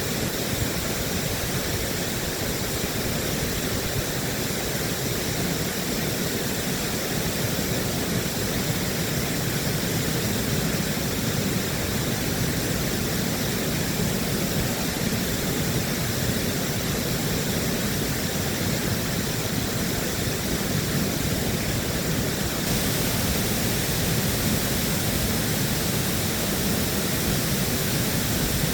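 Water rushing through a dam, a steady, even noise.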